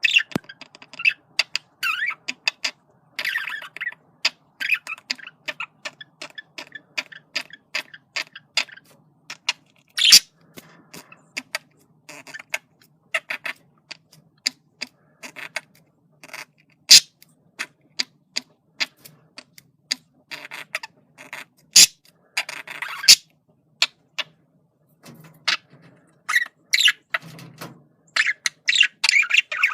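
Male budgerigar chattering: a quick, irregular run of chirps and squawks mixed with many sharp clicks, broken by short pauses.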